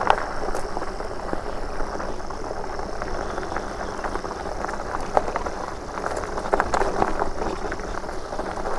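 Fat tyres of a Super73 e-bike rolling over a rough dirt track: a steady crackling rumble of grit and small stones, with a few sharper knocks about six to seven seconds in.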